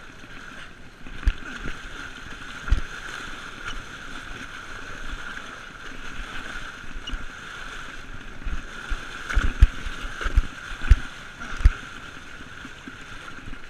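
Water rushing and splashing along the side of a boat around a blue marlin held at the gunwale, with a steady wash of noise. Several sharp, heavy thumps come through it, most of them bunched together in the last few seconds.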